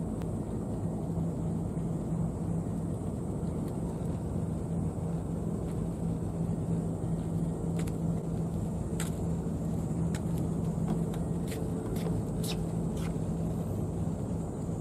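Steady low outdoor rumble with a constant low hum underneath. A handful of short, light clicks come in the second half.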